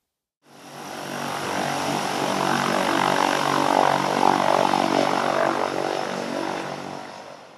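Propeller floatplane's engine running at high power as the plane skims across a lake on its floats. The engine and propeller sound grows louder to a peak midway, then fades away.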